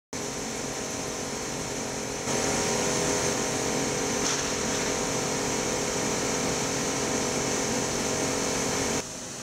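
Epilog Legend 36EXT laser engraver running a vector heavy-etch pass, a steady whirring machine noise with a hum in it. It gets louder about two seconds in and drops back near the end.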